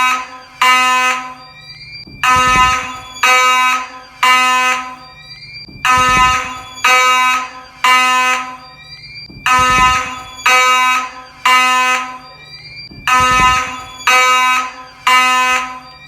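Fire alarm horn sounding in the code 3 (temporal-three) pattern: three short, evenly spaced blasts, then a pause of about a second and a half, repeating about every three and a half seconds. It is pretty loud, and a low knock comes as each group of three begins.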